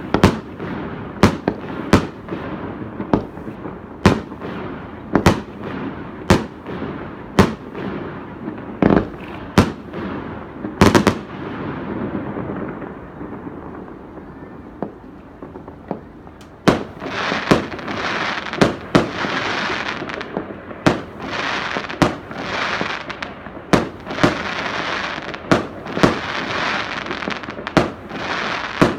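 Aerial fireworks bursting overhead: a string of sharp bangs about one a second, and from about halfway through, bangs followed by a sizzling crackle of glittering stars.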